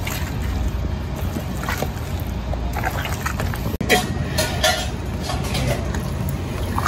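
Ripe avocados being smashed in a stainless steel bowl with a metal masher for guacamole: irregular soft squishes with scattered scrapes and clicks of metal on the bowl, over a steady low hum.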